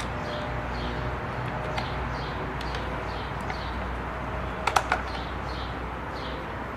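A few sharp clicks of metal parts being handled and fitted inside the underside of a Singer Stylist 522 sewing machine, about two-thirds of the way through, over a steady low hum. A bird chirps faintly about twice a second in the background.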